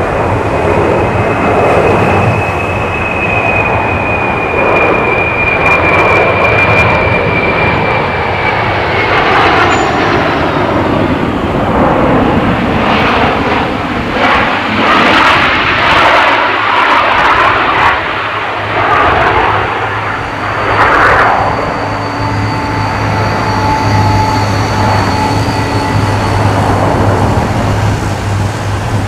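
Boeing C-17 Globemaster III's four Pratt & Whitney F117 turbofan engines, loud in a low flying-display pass. A high whine rides over rushing jet noise for the first several seconds. The noise then swells and ebbs as the aircraft passes.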